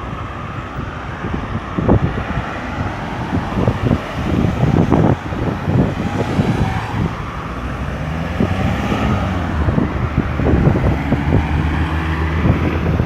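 Road traffic moving around a busy roundabout: cars and heavier vehicles passing in a steady low rumble, with one engine's hum standing out in the second half.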